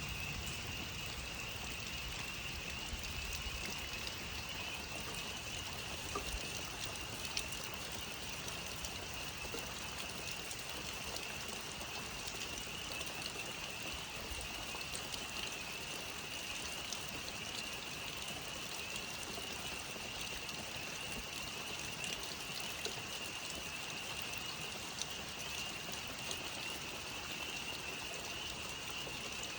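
A dense chorus of many frogs calling at once, merging into a steady, high-pitched ringing that does not let up.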